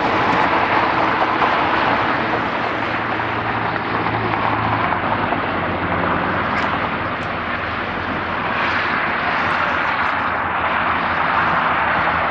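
Four-engine Airbus A340-300 jet airliner on final approach with its landing gear down, its engines making a steady rushing noise with a low hum.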